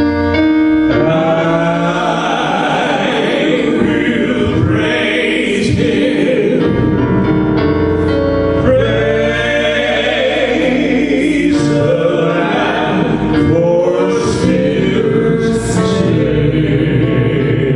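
Gospel worship music: a choir singing a praise song over piano accompaniment.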